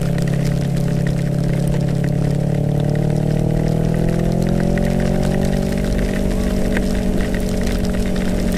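Motorcycle engine running steadily at road speed, its pitch rising gently about halfway through, under a hiss of wind and heavy rain. Scattered small ticks of rain or hail striking the camera.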